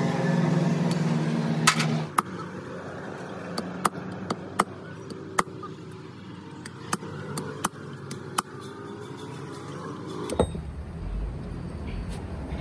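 A vehicle engine hums steadily for about two seconds. Then comes a string of sharp, irregular metal taps and clinks as a steel bar works the tapered roller bearing on a truck differential pinion. A dull thump comes near the end.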